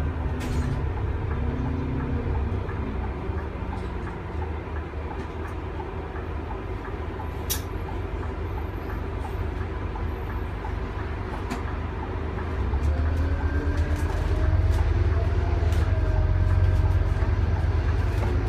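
Interior sound of a Scania N230UD double-decker bus under way: its five-cylinder diesel engine and drivetrain give a steady low rumble, with light rattles and clicks from the cabin fittings. About two-thirds of the way through the engine note grows louder, with a rising whine as the bus picks up speed.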